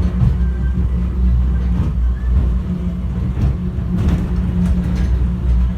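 Airport inter-terminal subway train running at speed, heard from inside the car as a loud, steady low rumble.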